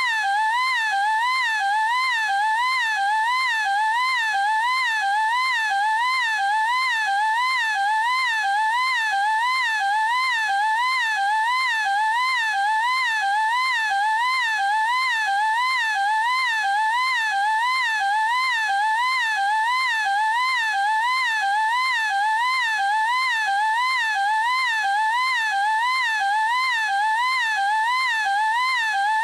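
A young female anime voice holding one unbroken, high-pitched "eeeek" shriek, drawn out without a break. Its pitch wavers up and down in a steady regular warble, about three wavers every two seconds.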